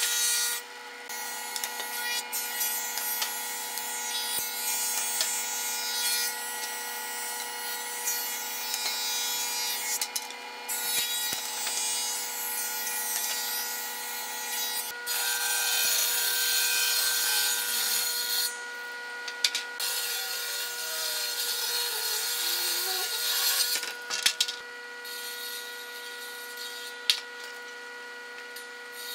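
Hitachi small combination woodworking machine running with a steady whine, its planer cutterhead shaving boards in several long passes, each a rasping hiss of wood being cut. Near the end the cutting stops and only the machine's running and a few sharp clicks remain.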